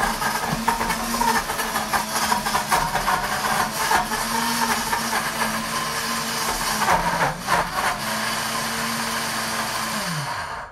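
Pampered Chef Deluxe Cooking Blender motor running fast on the grind setting while chunks of Parmesan cheese clatter against the blades and jar as they are ground, with a rattle of clicks over the first few seconds. The motor dips briefly about seven seconds in, then is switched off near the end and winds down with a falling pitch.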